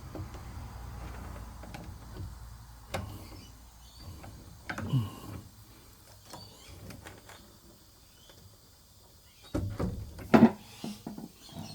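Handling noises of hands working on a washing machine's water inlet valve: scattered clicks and knocks, with a low hum over the first few seconds and a sharp knock near the end. A couple of brief voice sounds come in about five seconds in and again near the end.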